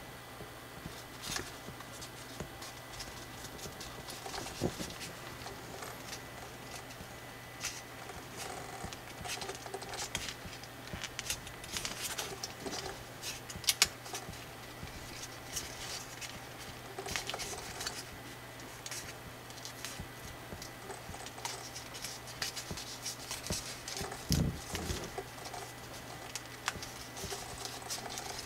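Slightly thick colored drawing paper being folded and pressed into shape by hand: irregular crinkling and rustling with scattered sharp crease clicks, the sharpest about halfway through, over a faint steady low hum.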